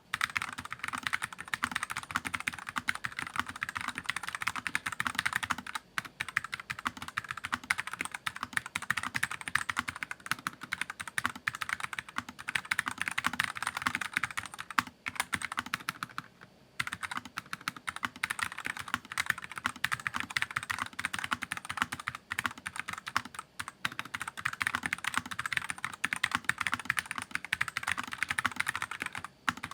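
Continuous typing on an Armageddon MKA-1C Nex mechanical keyboard fitted with red (linear) switches: a dense run of key clacks with short pauses about 6 and 16 seconds in. The keys sound a little hard, from the keyboard's standard plate build.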